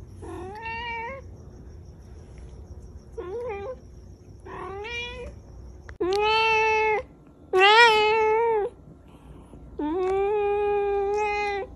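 Domestic cat meowing six times: three short meows with a rising end, then three longer, louder meows, the last one held for nearly two seconds.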